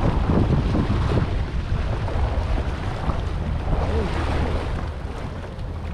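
Small waves washing and splashing over a rock ledge at the shoreline, surging near the start and again about four seconds in, with wind buffeting the microphone as a low rumble.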